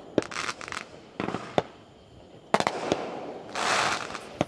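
Aerial fireworks going off: several sharp bangs, the loudest about two and a half seconds in, with stretches of crackling hiss between them, the longest near the end.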